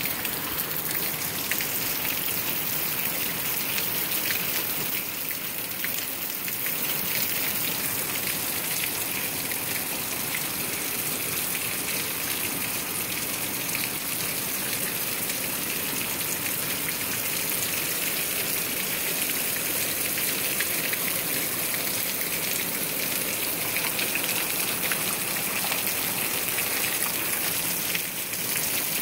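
Heavy rain falling steadily, with runoff streaming off the roof edge close by in a dense, even hiss.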